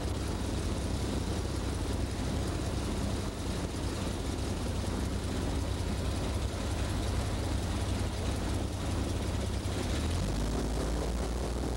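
Boat motor running steadily under way, with spray and hiss over a low hum; the engine note drops about ten seconds in as it slows.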